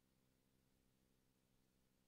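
Near silence, with only a very faint steady hum.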